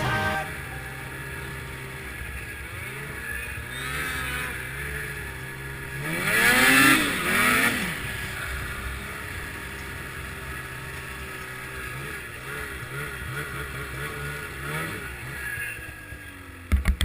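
Ski-Doo MXZ snowmobile's two-stroke engine, fitted with an aftermarket Stinger exhaust pipe, running and being revved: one strong rev rising and falling about six to eight seconds in, with smaller blips of throttle later. A few sharp thumps at the very end.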